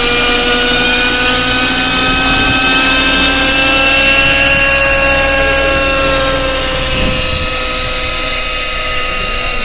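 Nitro (glow-fuel) engine and rotor of an RC helicopter running at flying speed while it hovers, a steady high-pitched whine whose pitch rises slightly over the first few seconds and then sinks gradually.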